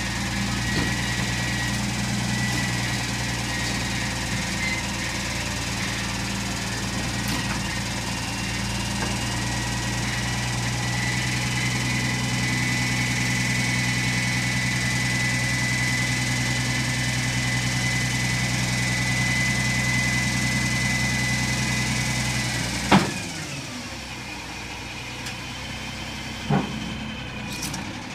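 Roll-off truck's diesel engine running at raised revs while its hydraulic hoist pulls a loaded roll-off dumpster onto the bed, with a steady whine over the engine note. About 23 seconds in, the hoist stops with a sudden knock and the engine drops back to idle. A single sharp click follows a few seconds later.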